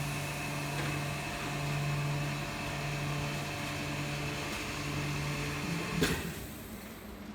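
Vacuum packing machine's pump running with a steady hum. About six seconds in there is a short burst of noise, after which the hum stops.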